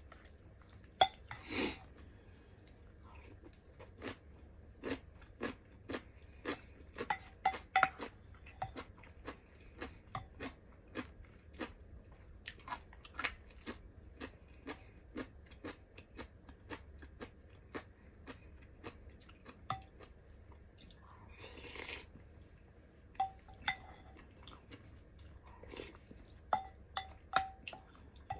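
Chewing and mouth sounds of someone eating seaweed soup and rice, made up of many short wet clicks. Now and then a utensil clinks lightly against a bowl.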